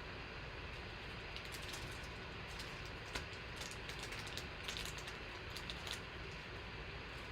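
Faint, scattered light clicks and rustles of trading cards being slid into plastic card sleeves, over a steady background hiss.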